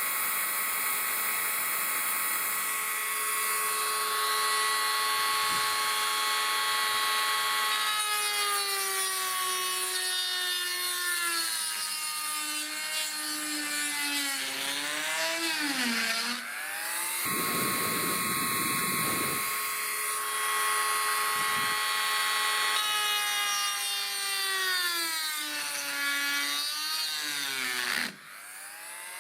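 A small high-speed power tool runs with a steady whine that sags in pitch again and again as it is pressed into the work and loaded, then picks back up. There is a brief rough grinding patch past the middle. It stops near the end and starts up again. It is boring out the steel remains of an old fastener in a hole in an aluminium door skin.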